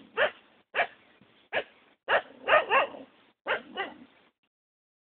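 A dog barking, about eight short barks in quick clusters, stopping about a second before the end.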